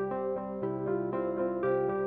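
Background music: soft ambient keyboard tune with notes changing every fraction of a second.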